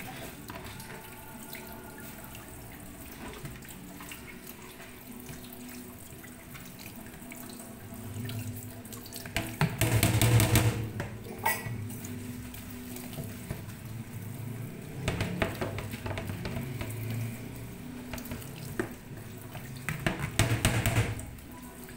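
Kitchen tap running into a stainless steel sink while chicken feet are rinsed in a plastic colander. The water splashes louder in bursts as the colander is tilted under the stream: about halfway through, again a few seconds later, and near the end.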